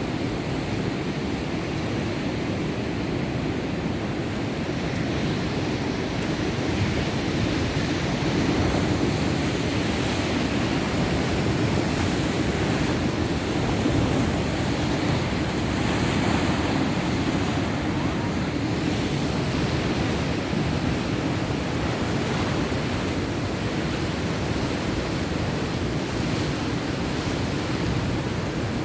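Heavy surf from a rough, storm-driven sea: breaking waves make a continuous rushing noise that swells a little about a third of the way in, with wind on the microphone.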